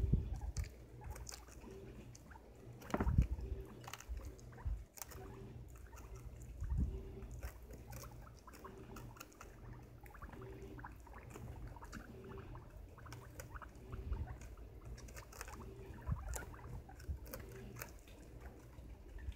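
Several guinea pigs biting and chewing a raw cauliflower: a rapid, irregular scatter of small crisp crunches, with a louder knock about three seconds in.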